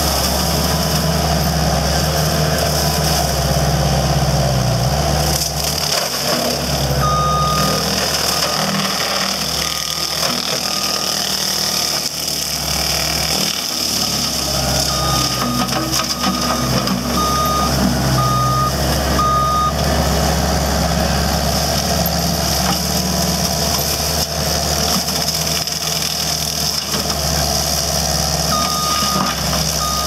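Caterpillar 299C compact track loader's diesel engine running steadily under load while driving a forestry mower head through brush. The reverse alarm beeps in several short runs as the machine backs up.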